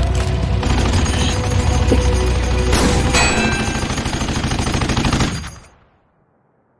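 Rapid machine-gun fire over background music, with one louder burst about three seconds in. It all fades out after about five seconds into silence.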